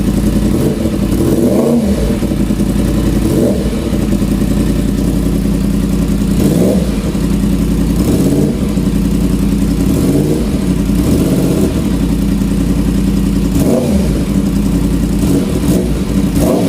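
Yamaha MT-10's crossplane inline-four, breathing through an aftermarket SC-Project exhaust, idling and blipped repeatedly with short throttle revs every second or two, each rising and falling back to idle.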